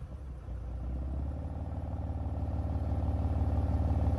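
BMW M4's twin-turbo straight-six dropping suddenly off a rev at the start, then idling steadily, the idle slowly growing a little louder.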